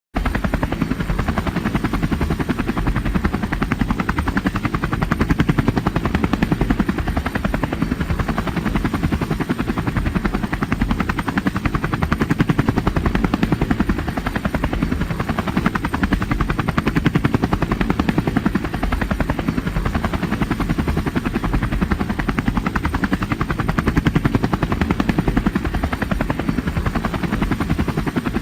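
Helicopter rotor blades beating in a loud, rapid, steady chop.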